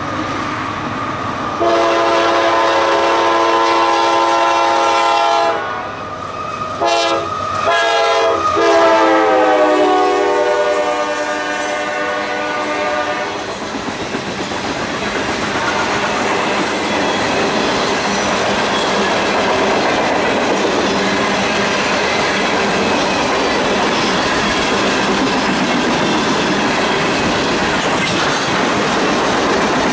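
Freight locomotive's multi-chime air horn: a long blast, a short one, then a longer one that drops in pitch as the locomotive goes by. After it comes the steady noise of the train's cars rolling past.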